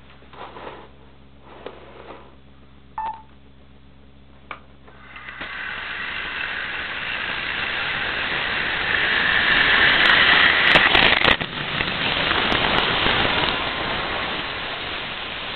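Model train running on the track close by: a whirring rumble that swells over several seconds, is loudest about ten seconds in with a few sharp clicks, then eases off. Before it, a low hum and a few small knocks. Heard through the toy camera's small, muffled microphone.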